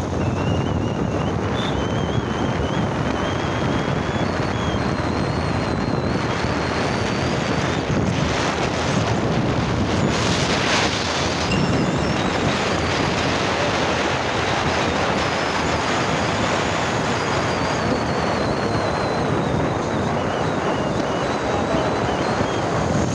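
Wind rushing over the microphone of a moving motorcycle, with the engine and tyre noise running underneath; the rush swells briefly about ten seconds in.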